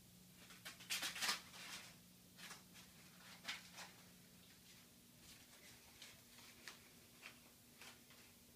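Faint, scattered crinkles and taps of a crumpled paper ball as a kitten bats and paws at it on a concrete floor, the loudest cluster about a second in. A steady low hum runs underneath.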